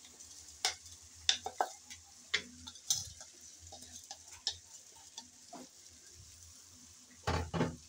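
Rice and red lentils frying in hot spiced oil in a wok, sizzling with scattered sharp crackles and pops. A louder clatter comes near the end.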